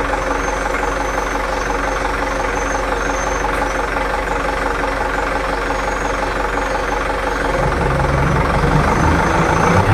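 Mitsubishi Fuso Canter truck's diesel engine idling steadily. About three-quarters of the way through, its note deepens and grows a little louder as it takes on load, with the power take-off driving the hydraulic pump that starts raising the dump body for a tipping test.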